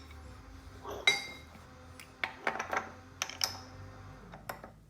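Metal hand tools clinking and knocking: a ringing metallic clink about a second in, then several sharper clicks and a few light taps near the end, as a large socket and bar are handled at the rear axle.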